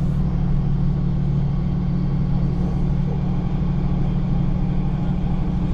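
Diesel passenger train heard from inside the carriage while running: a steady low engine hum over continuous rolling noise.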